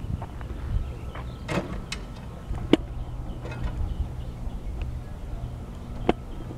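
Farm tractor engine running steadily at a low hum, with a sharp knock about three seconds in and another near the end.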